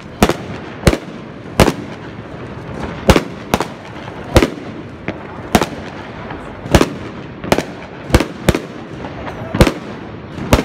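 Aerial fireworks going off overhead: about a dozen sharp bangs at uneven intervals, roughly one a second, over a steady background noise.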